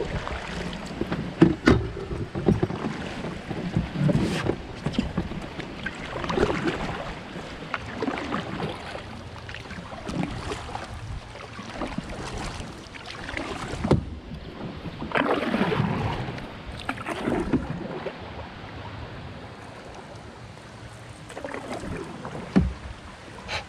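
Paddle strokes dipping and splashing in shallow river water, coming irregularly every second or two, with a few short sharp knocks and one stronger splash past the middle.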